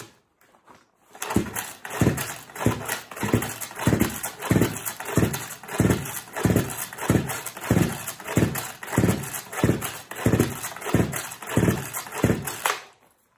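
Small two-stroke Chinese chainsaw, cold-soaked at 24 below zero, being pull-started: about nineteen quick pulls of the recoil starter, roughly one every 0.6 s. The engine cranks on each pull but does not fire.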